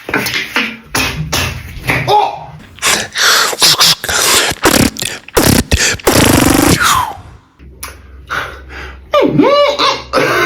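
Beatboxer making vocal sound effects: a quick run of clicks, pops and hissing bursts, a long buzz about six seconds in that ends in a falling slide, then rising-and-falling wails like a siren near the end.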